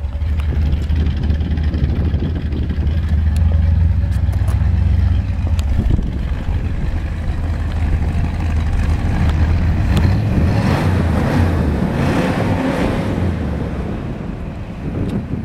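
1965 Chevrolet Corvette Sting Ray's 396 big-block V8 idling through its side-mounted exhaust pipes, a deep, steady rumble.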